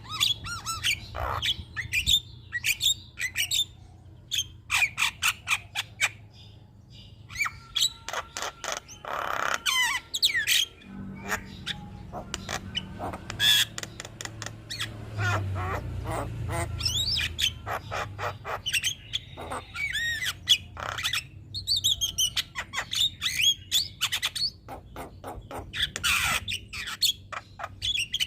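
Male Javan myna in full, continuous song: a varied run of harsh squawks, rapid clicking rattles and gliding whistles, broken by short pauses.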